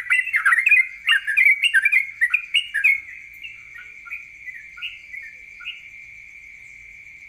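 Songbird singing a rapid 'ropel' run of sharp chirping notes, loud and dense for about three seconds, then thinning to a few softer scattered notes. A steady high-pitched tone runs underneath.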